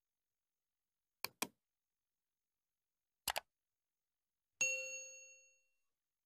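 Two quick double clicks, then a bright bell ding that rings out and fades over about a second: the click-and-bell sound effect of a subscribe-button and notification-bell overlay.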